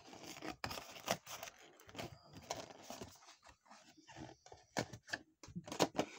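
Plastic packaging being handled: irregular crinkles and clicks, with a cluster of louder ones near the end.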